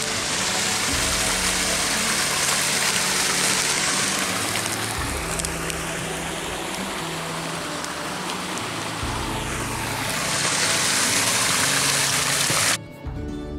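Steady rush of running water with soft background music notes beneath it; the water sound cuts off abruptly near the end, leaving only the music.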